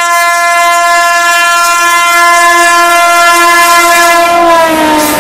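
Indian Railways WAP-7 electric locomotive's air horn sounding one long, loud blast as the train passes at speed. The pitch drops near the end as the locomotive goes by.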